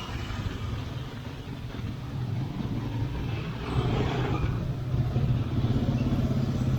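A motor vehicle's engine running with a steady low hum, growing louder about four seconds in.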